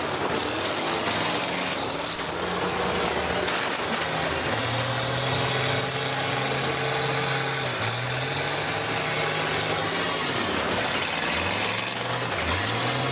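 School bus engines running in a demolition derby, revving so their pitch rises and falls several times in the second half, over a steady wash of noise.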